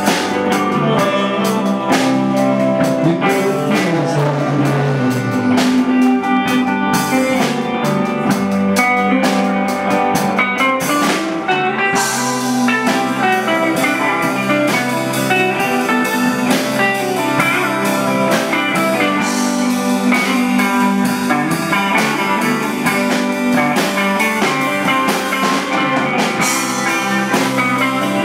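Live blues band playing, with a semi-hollow-body electric guitar among the instruments.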